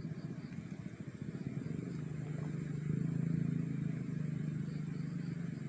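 A motor vehicle's engine running, a low drone that grows louder about two seconds in and eases off near the end, with a faint steady high-pitched tone throughout.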